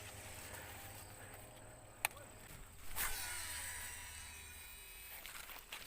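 Fishing cast: a sharp click of the reel, then a whirring hiss of line running off the spool about a second later that fades over a couple of seconds.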